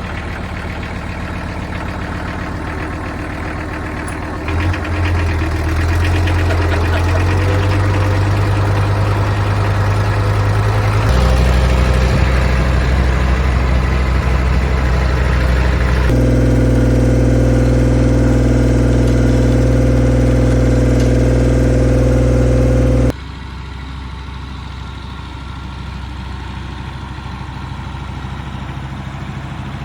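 Kubota tractor's diesel engine running steadily under work, its tone and loudness changing abruptly several times; it is loudest through the middle and drops suddenly about three-quarters of the way through.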